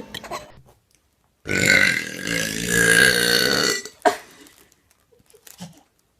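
A person's long, loud burp lasting about two seconds, starting about a second and a half in, croaky and rattling through its length.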